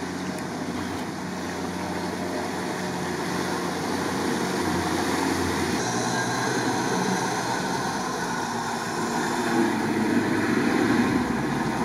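Off-road 4x4 engines running under load while wading a deep river ford, with water washing around the bodies. The sound changes abruptly about six seconds in, where one vehicle gives way to another, a UAZ.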